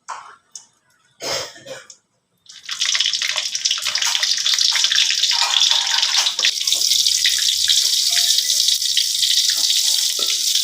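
Chili and tomato frying in hot oil in a pan: a loud, steady crackling sizzle that starts about two and a half seconds in, after a few short knocks, and cuts off abruptly near the end.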